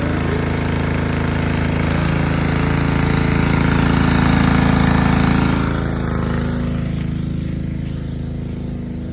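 Small gasoline engine of a pressure washer running steadily. It grows louder toward the middle, then eases off over the last few seconds.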